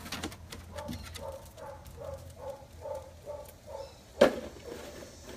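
A dog's short, repeated vocal sounds, about three a second, then one sharp knock about four seconds in.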